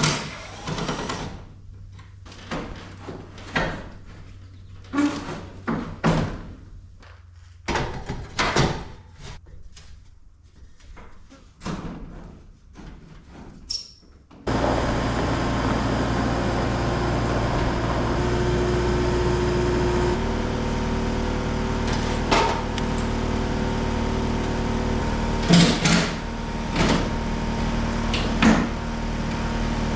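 Scattered metal clanks and knocks from work on garage door panel hardware. About halfway, a loud steady machine noise starts suddenly and runs on, with more knocks over it.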